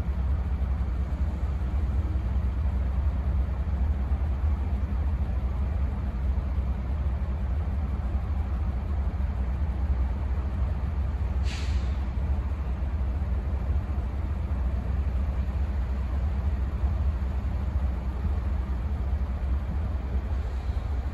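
Steady low engine rumble, with a short high hiss about eleven and a half seconds in.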